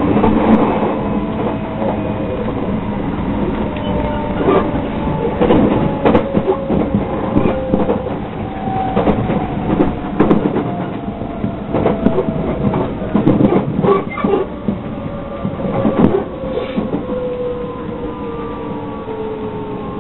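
Inside a JR 681/683 series limited express electric train slowing for a station stop: the motors' whine slides steadily down in pitch under braking, over the running rumble, while the wheels knock irregularly over rail joints and points.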